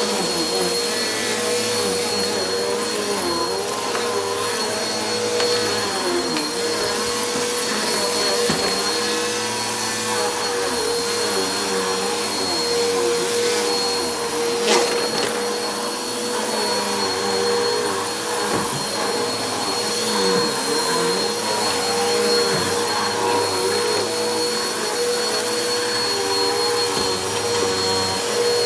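Helix Turbo upright vacuum cleaner running steadily while it is pushed over carpet, with a constant motor whine and a suction sound that wavers up and down in pitch. One sharp click about halfway through.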